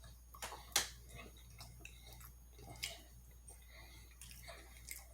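Close-up chewing of a mouthful of soft food: potato salad, cranberry sauce and stuffing, with scattered sharp wet mouth clicks and smacks, the loudest just under a second in.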